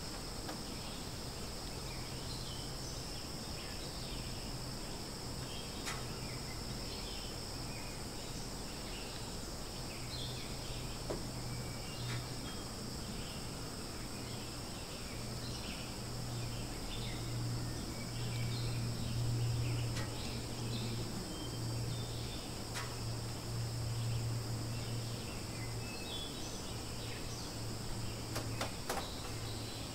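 Outdoor ambience of insects droning steadily at two high pitches, with scattered short bird chirps and a low steady hum underneath that swells somewhat in the second half.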